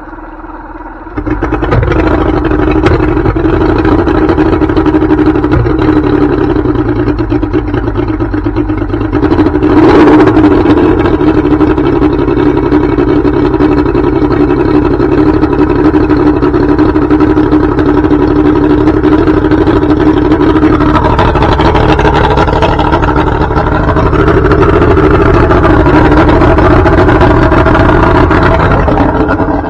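1993 Mercury Black Max 135 hp oil-injected two-stroke V6 outboard catching on a cold start about a second in, then running steadily at idle, out of the water on a garden-hose flush hookup. A brief sharp crack about ten seconds in, and the running note shifts and grows slightly louder in the last third.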